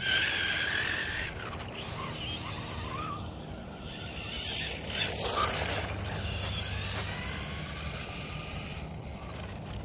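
Radio-controlled rally car's motor whining up and down in pitch as it is driven over the rough grass track, fading after the first couple of seconds, with a brief louder burst of noise about five seconds in.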